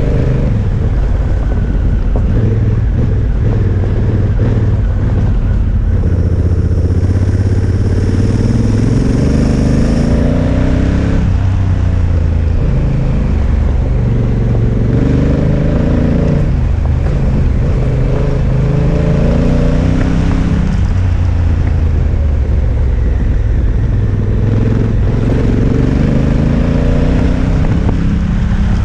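Honda Africa Twin motorcycle engine under way on a gravel road. Its pitch climbs and drops back several times as it accelerates and changes up through the gears, over steady wind and tyre noise.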